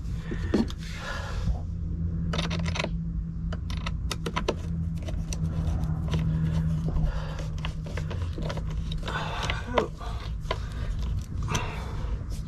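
Hand work on small metal parts: a screwdriver and fittings clicking, rattling and scraping as a part is screwed back in, over a steady low hum.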